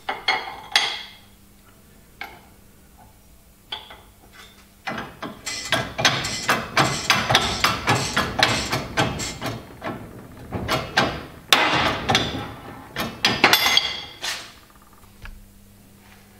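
Hand-pumped Sealey hydraulic shop press at work pressing a sprag bearing out of an e-bike motor's pulley: a few metal clicks as the part is set in place, then from about five seconds in a dense run of clacks and knocks from the pump handle and press for about ten seconds, with a few sharper cracks near the end.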